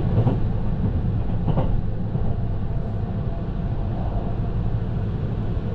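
Steady low rumble of a moving passenger train heard from inside the carriage, as it runs along the track.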